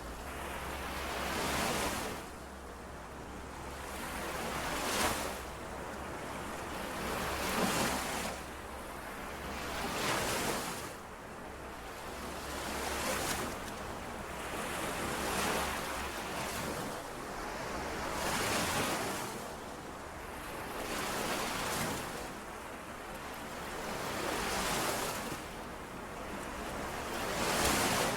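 Lake waves washing in and out, a swell rising and falling about every two and a half seconds.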